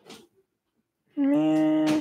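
A woman's voice: a short breath at the start, then a long hummed "hmm" held at one steady pitch for nearly a second near the end, while she squints at a tiny mark.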